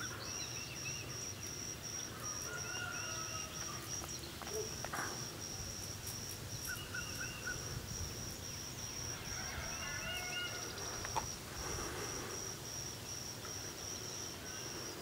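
An insect calling in a high, evenly pulsed trill. Short runs of bird chirps sound over it four times, with a low rumble underneath.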